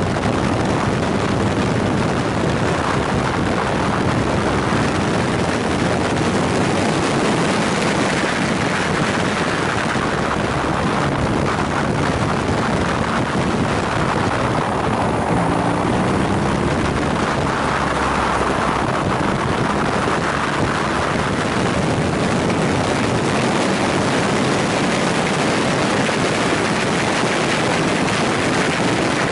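BMW R nineT's air/oil-cooled boxer twin running at road speed under a steady rush of riding wind on the microphone, the engine note shifting in pitch now and then through the bends.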